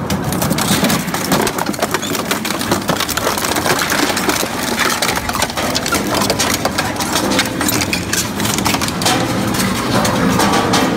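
Industrial shredder running and crushing material: a steady machine drone under dense, continuous cracking and snapping.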